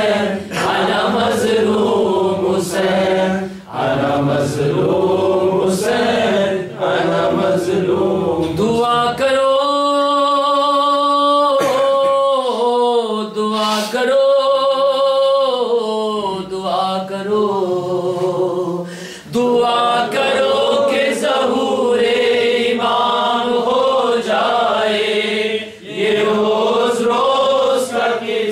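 Unaccompanied male singing of an Urdu noha, a Shia mourning lament for Husayn. From about a third of the way in, a lone voice holds long, wavering, drawn-out notes for several seconds, then the fuller chanting resumes.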